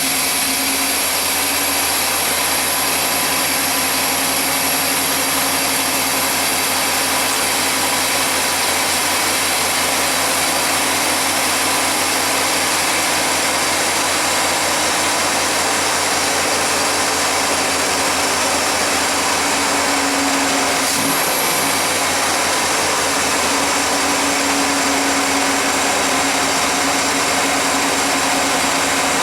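1991 GMC Jimmy's engine idling steadily, with a strong hiss over a hum of fixed tones; a brief change in the sound about two-thirds of the way through.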